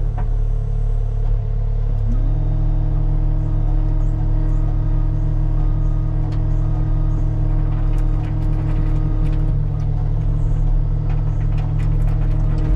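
Diesel engine of a Cat compact earthmoving machine running steadily while placing rip rap, with a higher steady hum that comes in about two seconds in and drops out near ten seconds, and scattered sharp clicks and knocks.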